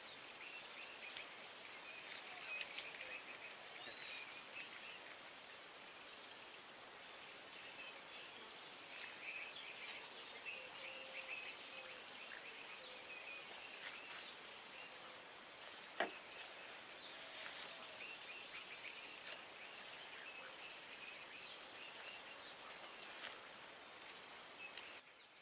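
Outdoor ambience: a steady, faint high-pitched hiss of insects with scattered bird chirps, and a few sharp clicks, one a little over halfway through.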